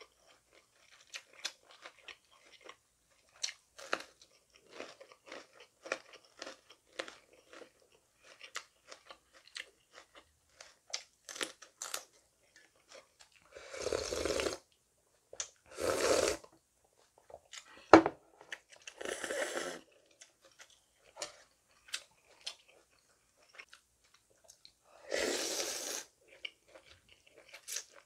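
Close-up mouth sounds of eating: crisp crunching and chewing of a raw green chili pepper, then several long slurps of cold naengmyeon broth drunk straight from the bowl. A single sharp click, the loudest sound, comes between the slurps.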